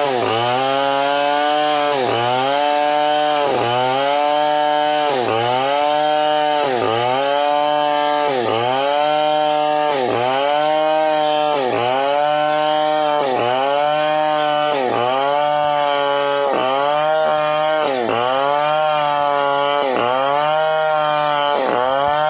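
Chainsaw ripping a log lengthwise into boards, its engine held at high revs. The pitch dips and recovers a little more than once a second as the bar is worked back and forth in the cut.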